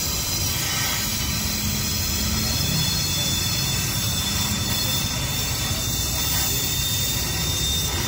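Gas welding torch hissing steadily as a joint in a steel exhaust pipe is welded with a filler rod.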